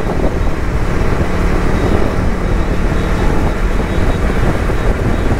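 Motorcycle riding along a road, heard from the rider's seat: steady engine running under a heavy rush of wind and road noise on the microphone.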